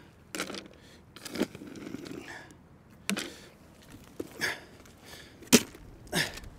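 Scoops of carp mix (particles and sweetcorn pellets) being tipped into a bait boat's hopper: a series of short, sharp sounds about a second apart.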